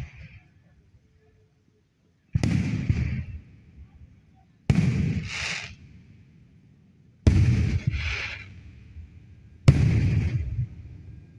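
Fireworks going off: four loud bangs about two and a half seconds apart, each trailing off over about a second.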